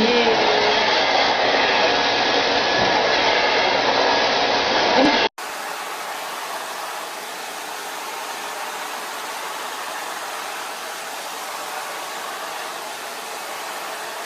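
A steady rushing noise like an electric blower motor running, cut off abruptly about five seconds in and replaced by a quieter, even hiss.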